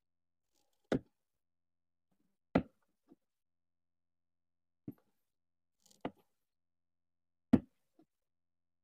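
Hand-stitching the rubber sole of an Adidas shoe with a needle and thread: about five short, sharp clicks a second or two apart as stitches are pulled through the sole, the last the loudest.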